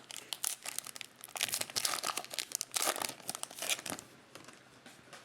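Foil trading-card pack wrapper crinkling and tearing as it is handled and opened, a dense run of crackles strongest in the middle and dying away near the end.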